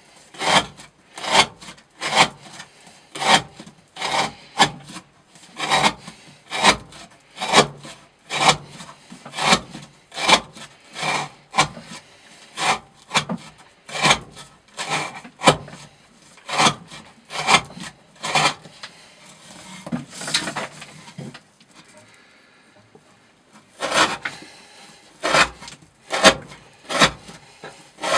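A knife with a 40° V edge slicing again and again through 20 mm Lanex rope in an edge-retention cutting test: a rasping cut of the fibres about one and a half times a second, with a pause of about two seconds near the end before the cuts resume.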